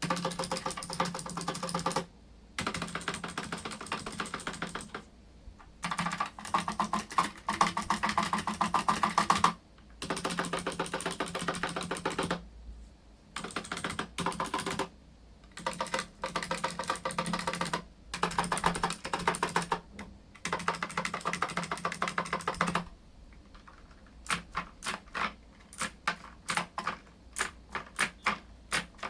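Mechanical keyboard with clicky blue switches and round typewriter-style keycaps: the stabilized larger keys are pressed in fast runs of clicking lasting a few seconds each, with short pauses between. Near the end the presses slow to separate clicks, about two a second.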